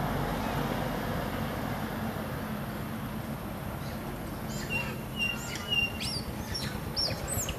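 Small birds chirping: short high chirps and quick whistled sweeps starting about halfway through. Under them is a steady low background rumble that slowly fades.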